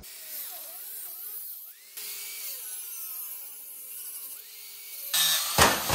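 Angle grinder cutting through a steel motorcycle frame tube, its whine rising and falling as the disc bites under load over a spray of sparks. Near the end the sound turns suddenly louder, with a sharp knock.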